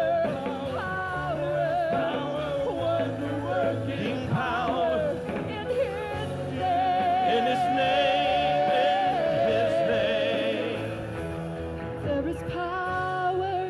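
Live gospel worship song: lead vocals sung into a microphone with a choir and instrumental backing. About halfway through, a long note is held with vibrato.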